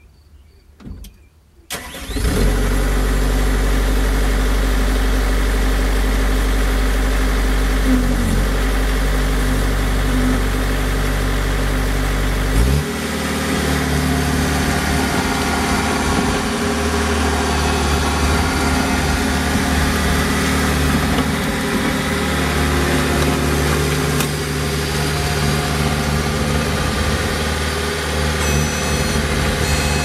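Bobcat T190 compact track loader's Kubota V2403 four-cylinder diesel starting about two seconds in and idling steadily. Partway through the revs rise and it runs on at higher speed as the loader moves off.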